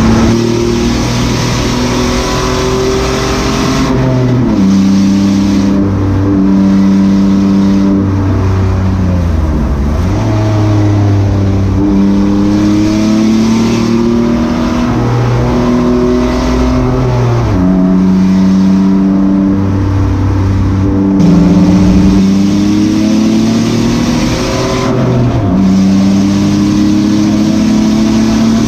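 Honda V6 race engine in a mid-engine 1967 Ford Mustang, heard from inside the cockpit under hard acceleration: the note climbs steadily through each gear and drops sharply at every shift, about five times. Around a third of the way in the pitch falls further as the car slows, then climbs again, all over a constant hiss of wind and tyre noise.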